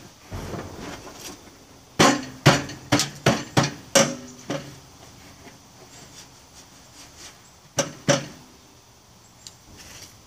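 Sharp metal knocks with a short ring as parts are banged into place on a Snapper rider mower: a quick run of about seven knocks, then two more a few seconds later.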